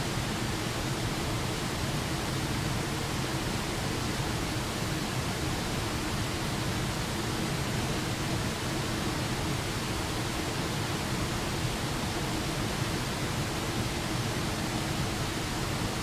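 Small waterfall pouring over a rock ledge into a rocky creek: a steady, even rush of falling and churning water.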